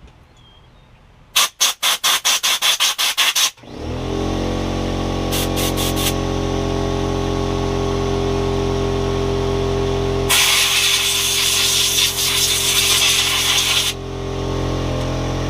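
Compressed air blow gun hissing in a rapid string of short blasts as carburetor parts are blown clean, then an air compressor motor starts about four seconds in and runs steadily. Over the compressor, a few more short blasts follow, then one long blast of air lasting about four seconds.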